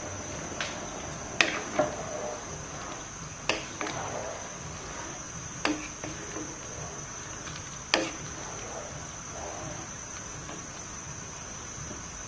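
Spatula stirring a pot of thin curry, knocking against the side of the metal cooking pot about six times at irregular intervals, with a soft sloshing between the knocks.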